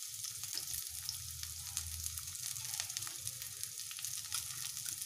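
Chopped onions sizzling in hot oil in a frying pan, a steady hiss with many small crackles as their moisture spits.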